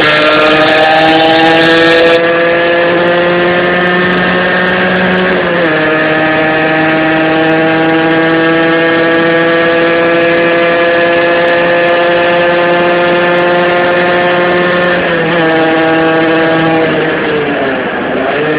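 Rieju RS2 Matrix 50cc two-stroke single, on a Top Perf cast-iron kit with a 21 mm Dell'Orto PHBG carburettor and a homemade exhaust, running hard under way. The engine note climbs slowly, dips sharply about five seconds in and again about fifteen seconds in, then falls off near the end before picking up again.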